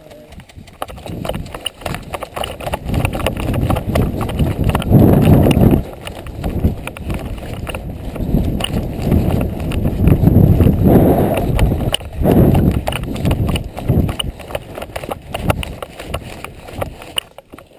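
Rapid footsteps of a person running over dry grass, a quick steady run of footfalls, heard through a body-worn GoPro camera with loud low rushes of noise buffeting the microphone several times.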